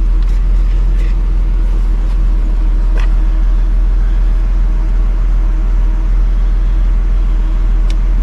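A steady low hum with a constant tone above it, and a few faint clicks of small parts being handled.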